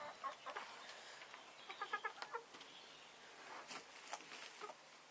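A hen's soft, faint chattering clucks, a quick run of short calls about two seconds in, among light rustling and taps.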